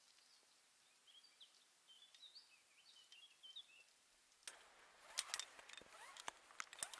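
Faint bird chirps, short rising and falling notes, for the first few seconds; then, from a little past halfway, close scraping, rubbing and sharp clicks as a climber's hands, shoes and gear move on the rock.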